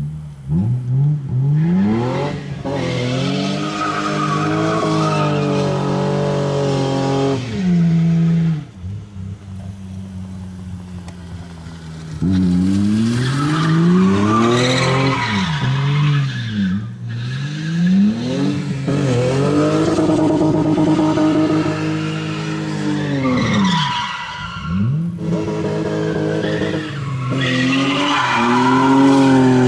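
BMW engine revved hard during burnouts and drifting, its pitch climbing and falling again and again, with tyres squealing as they spin. The revs ease off for a few seconds about a third of the way in, then climb again.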